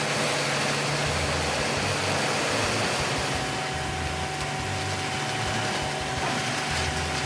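Bandit Beast 2680 wood grinder running steadily: a constant engine drone with a low hum, and a thin steady whine joining about three seconds in.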